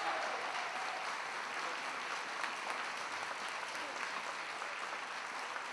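Live audience applauding steadily, a dense even patter of many hands clapping.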